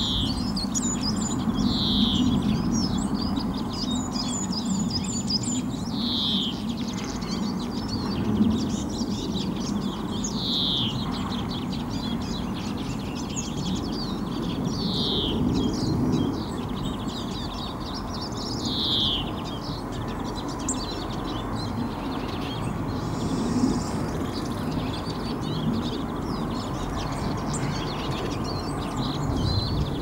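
Songbirds calling: a clear falling note repeated every few seconds among scattered short high chirps, over a steady low rumble.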